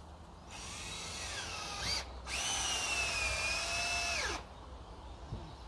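Power drill run twice against a greenhouse frame. The first run starts about half a second in, drops in pitch under load and picks up just before it stops. After a short pause the second runs steadily for about two seconds, then winds down.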